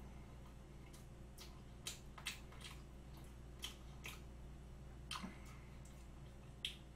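Faint mouth clicks and wet smacks of someone chewing soft chocolate cream cake, several scattered short ticks over a low steady hum.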